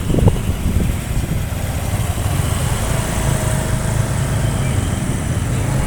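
A road vehicle's engine running steadily, a low rumble with road noise.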